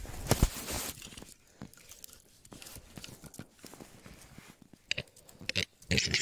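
Phone microphone rubbing and knocking against fabric as the phone is handled and covered: crinkly rustling and scuffing bursts, loudest in the first second and again near the end.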